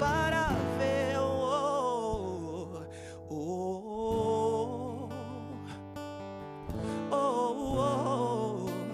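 Live gospel worship song: a male singer holding long, wavering notes into a microphone over acoustic guitar accompaniment.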